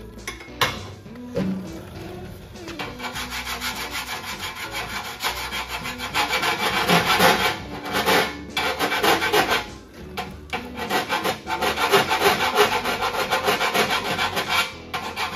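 Hand file rasping along the edge of a sheet-steel Model A cowl panel in quick back-and-forth strokes, several a second, with a couple of short pauses. The file is dressing off a TIG-welded and ground seam corner to finish it.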